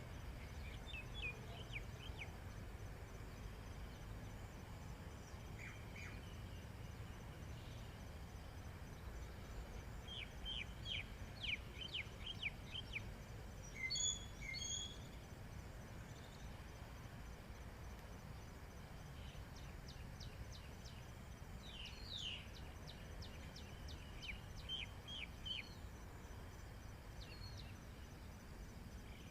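Small birds chirping faintly in quick runs of short high notes, a few bursts spread over the stretch, above a steady low background rumble.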